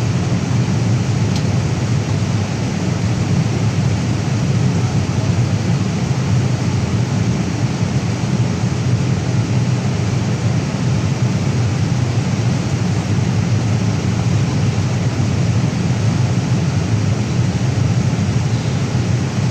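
Boeing 787 Dreamliner cabin in flight: a steady, deep rush of airflow and engine drone, even throughout.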